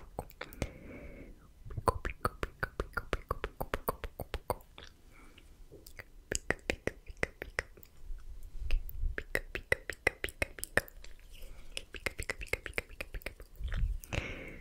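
Close-miked ASMR mouth sounds: quick runs of tongue and lip clicks ("tk tk"), broken by short breathy hissing sounds about a second in and near the end.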